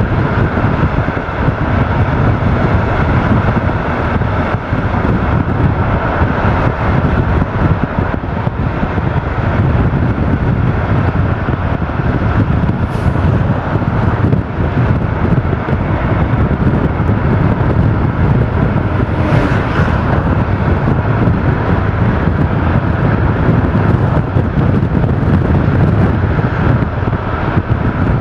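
Steady road and wind noise heard from a moving car. Two brief whooshes rise above it, about halfway through and again a few seconds later, as oncoming cars pass.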